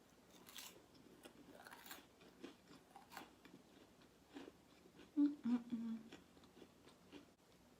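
Close-miked chewing and mouth sounds of someone eating, with scattered soft crackly clicks and a brief hummed sound about five seconds in.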